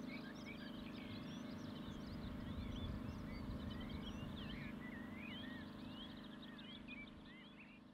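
Faint outdoor ambience of many small birds chirping and twittering, with quick rising and falling notes, over a low steady hum; it all fades out near the end.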